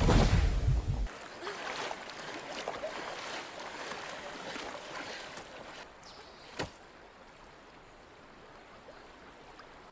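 A deep rumble that cuts off about a second in, then splashing and rushing water as a person crawls on hands and knees through a shallow river. The water grows quieter, and one sharp click comes about two-thirds of the way through.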